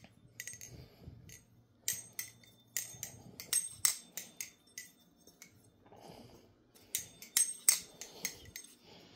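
Titanium Thomas Aragon balisong being flipped through tricks: its handles and blade clack and click in quick runs, some strikes ringing briefly, with a pause of about two seconds in the middle.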